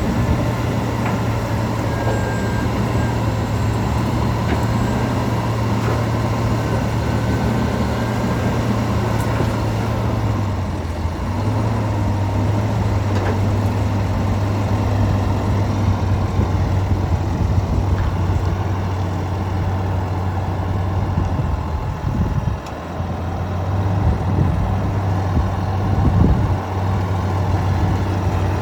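Komatsu D65EX-17 bulldozer's six-cylinder diesel engine running steadily, with its pitch dipping briefly about ten seconds in and again a little past twenty seconds.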